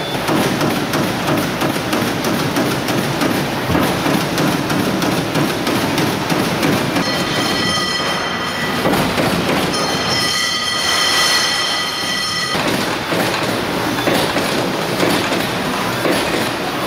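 LVD/Shape Delta 1500 CNC punch press running, with a dense, rapid clatter of repeated strokes and moving parts. A high squeal of several tones joins in from about seven seconds in and stops about five seconds later.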